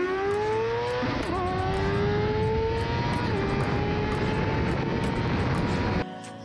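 Sport motorcycle engine at full throttle, its pitch climbing steadily through the gears, with quick upshifts about a second in and again about three seconds in. The engine sound cuts off suddenly near the end.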